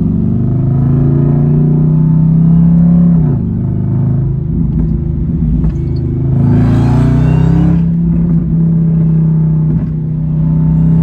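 Dodge Hellcat's supercharged V8 heard from inside the cabin, driving on steady throttle. The engine note drops about three seconds in, then picks up again around six seconds in with a short burst of higher rushing noise.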